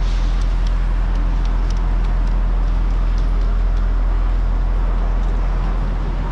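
City street traffic: a steady low engine hum from a vehicle running close by, over a constant wash of road noise.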